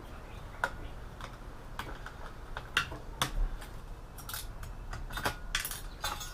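Irregular light clicks and metallic clinks of small metal parts, screws and shielding, being handled as an all-in-one computer is taken apart by hand. They come a few at a time, busier about halfway through and again near the end.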